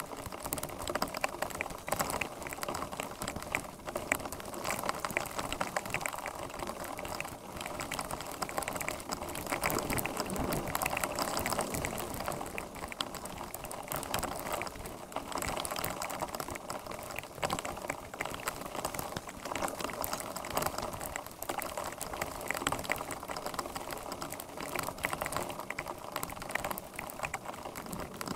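Heavy rain falling on a wet road and pavement in a dense, steady patter, with water gurgling into a storm drain as its grate is cleared of debris by hand.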